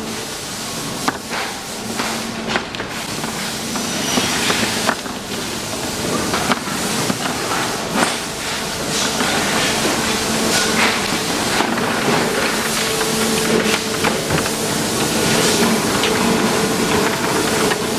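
Hard plastic furniture legs clicking and knocking as they are picked up and bagged by hand, with plastic bags rustling, over a steady machine hum and hiss in the background.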